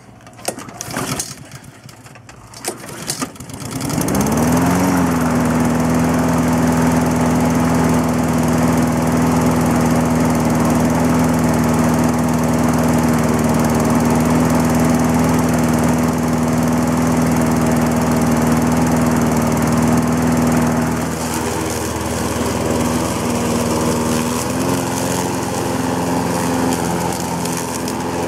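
Craftsman push mower's Honda single-cylinder engine, which has no primer bulb, starting about four seconds in after a few clicks and rattles. It picks up speed briefly, then runs steadily. Its note dips about two-thirds of the way through and picks up again near the end.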